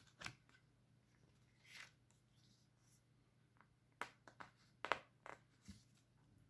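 Handling of a CD booklet and its packaging: a soft paper rustle as a page turns, then a cluster of light clicks and taps as the CD sleeve is picked up, the loudest about five seconds in.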